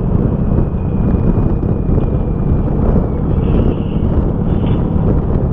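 Strong wind blowing across the microphone of a moving vehicle: a dense, steady low rumble mixed with road noise.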